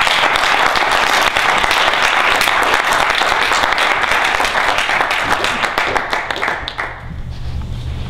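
A small audience clapping, a dense patter of many hands that thins out and stops about seven seconds in.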